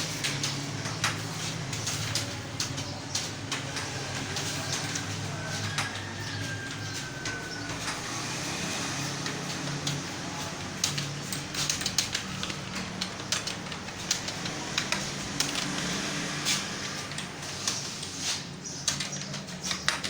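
Computer keyboard keys being typed on at an uneven, unhurried pace, a student's timed typing test at about 34 words per minute, with single clicks irregularly spaced over a steady low hum.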